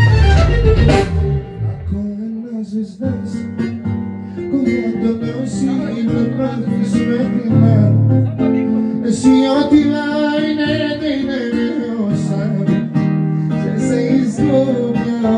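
Live Bulgarian pop-folk band music with a plucked-string melody line over a steady accompaniment.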